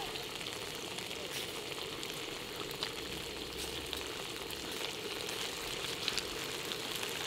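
Spicy marinated webfoot octopus sizzling steadily on a hot griddle as it is stir-fried with chopsticks, with a few sharp clicks along the way.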